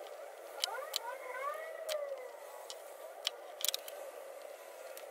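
Faint clicks and taps of clamps, calipers and a pencil handled over paper on a workbench, in a scattered series. A faint wailing tone rises and falls from about one to two and a half seconds in.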